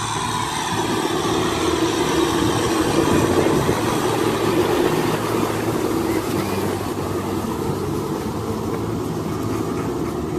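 Kubota M6040SU tractor's diesel engine running steadily under load while its rear rotary tiller churns through wet paddy mud, a little louder a few seconds in.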